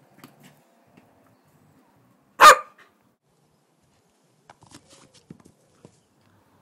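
A dog gives a single short, loud bark about two and a half seconds in. Faint scattered taps follow near the end.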